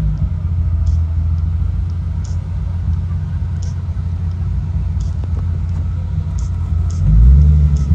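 Steady low car engine rumble, with an engine note rising as it revs up about seven seconds in.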